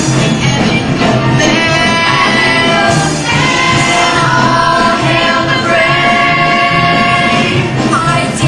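Young cast singing a musical-theatre number together over a band backing with a steady beat, holding long sustained notes.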